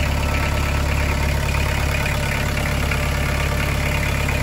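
Newly installed marine diesel engine running steadily after its fuel system was bled, its first successful run in the boat.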